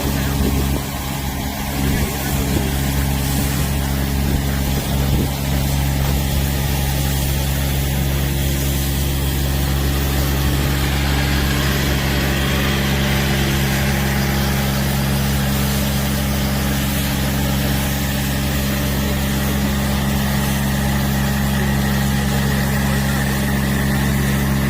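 Engine of a compact articulated multipurpose loader running at a steady speed during snow clearing. A faint higher whine joins about halfway through.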